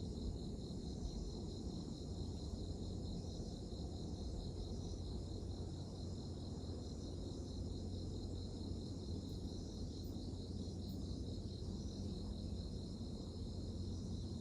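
Steady high-pitched chorus of insects trilling continuously, over a constant low rumble.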